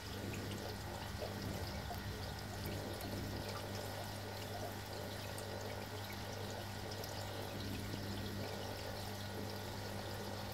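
Steady trickling and splashing of aquarium water, with a low steady hum underneath.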